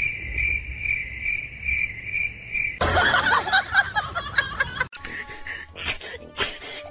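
Cricket chirping: a steady high trill pulsing about three times a second for nearly three seconds, then cut off by a busy mix of other sounds.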